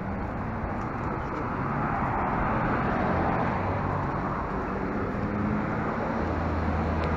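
Cars driving past on the road alongside, their tyre and engine noise swelling as one goes by about two to three seconds in, over a steady low hum of traffic.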